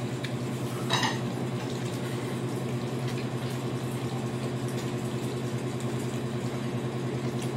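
Steady low electric-motor hum with a slight fluttering pulse, and a short clink about a second in.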